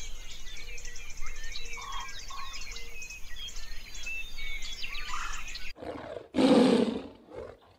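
Small birds chirping and twittering for the first five or six seconds, then a white tiger's single short roar, about two-thirds of a second long and the loudest sound, followed by a weaker growl.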